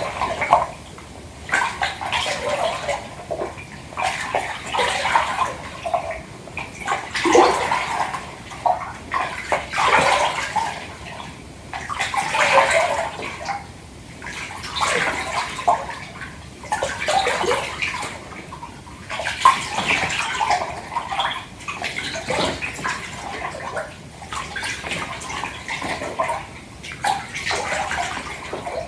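Bath water sloshing in a filled tub, swished by hand in irregular waves and small splashes, one every second or two.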